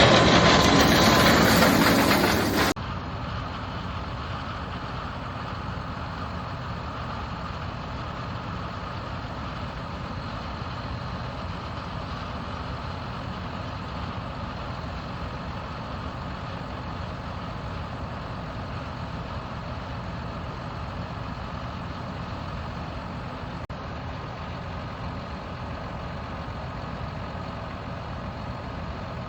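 Heavy harvest machinery engine running steadily. The first few seconds hold a much louder, harsher machine noise that cuts off abruptly about three seconds in.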